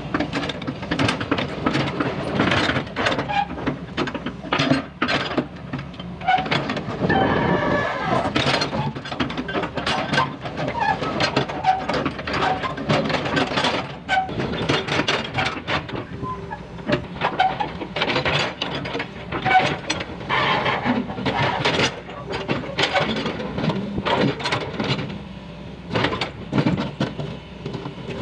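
Hydraulic tracked excavator running, its steel bucket scraping and knocking against broken pavement chunks and mud, with frequent irregular clunks and scrapes over the engine.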